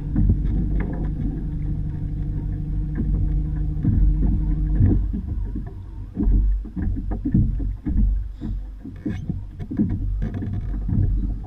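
Water lapping and knocking against a plastic sit-on-top fishing kayak's hull over a low rumble. A steady low hum runs for about the first five seconds, then stops, and the irregular knocks and splashes carry on.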